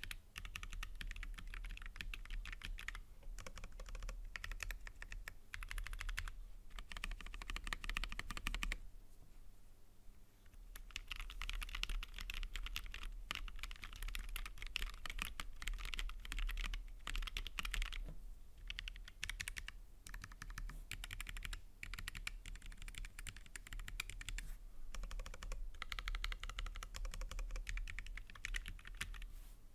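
Typing on a Keychron K3 Pro low-profile mechanical keyboard with Gateron low-profile switches and ABS keycaps: a steady run of key clicks, with a short pause about ten seconds in. The switches are louder than the optical switches of the older K3.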